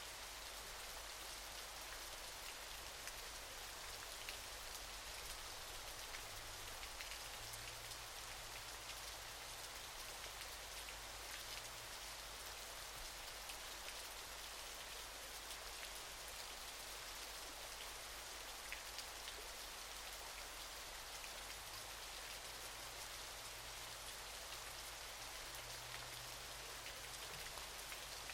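Waterfall: a steady hiss of falling, splashing water, dense with fine spatters.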